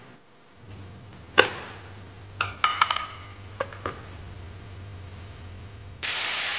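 Metal parts of a two-stroke motorcycle engine being handled during teardown: one sharp clank, then a quick run of light ringing metallic clinks and a couple of knocks, over a faint steady hum. About six seconds in, a loud steady hiss starts.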